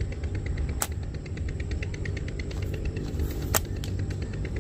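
Two sharp cracks about two and a half seconds apart, from slingshot shots, over a steady low rumble and a fast, even ticking.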